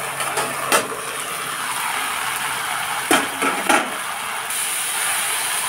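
Aluminium lid clanking against an aluminium kadai three times over the steady sizzle of taro stolons and potatoes frying. A higher steamy hiss comes up about two-thirds of the way in.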